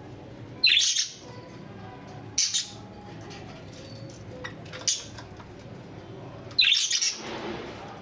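Budgerigars giving short, harsh, high-pitched chirps and squawks in four brief bursts, the last one near the end the longest, over a steady low hum.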